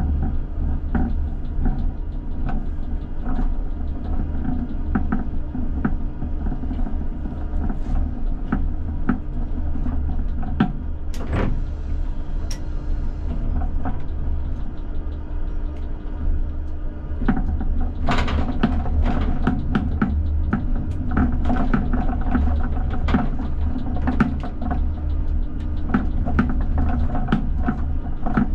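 ČKD Tatra T6A5 tram running slowly, heard from inside the driver's cab: a steady low rumble and hum from the running gear and traction equipment, with many clicks and knocks from the wheels on the track. The knocks come thicker in the second half.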